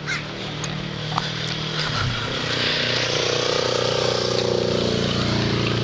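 A motor engine running steadily, growing louder about two seconds in and then holding.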